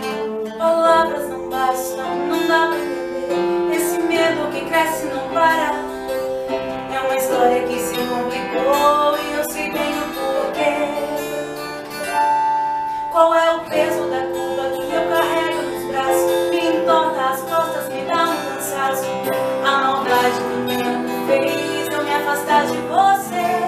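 Instrumental introduction of a ballad: plucked acoustic guitar under a melodic lead line, with a band accompaniment.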